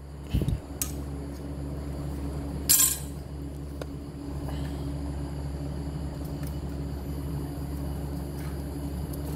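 Metal tools being handled and set down: a few light knocks in the first second, then a sharp clink close to three seconds in, with fainter ticks after, over a steady low hum.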